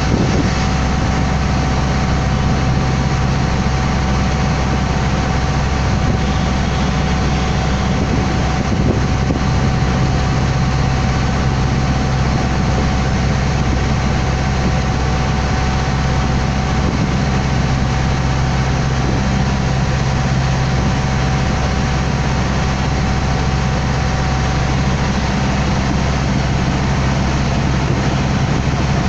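Water taxi's engine running steadily while the boat is underway: a loud, even low drone with a thin steady whine above it.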